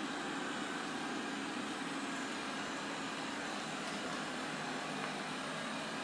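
Robot vacuum cleaner running steadily across a tile floor: an even whirring hum from its suction motor and brushes.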